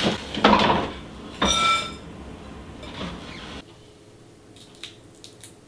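Handling and movement noises by a wooden table, with a short squeak about a second and a half in. After that the room goes quieter, with a few faint light clicks as walnut shells are picked at with a skewer.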